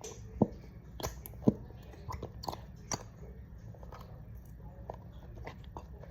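Slime being handled and squished, giving irregular sticky pops and clicks, thicker in the first three seconds and sparser after.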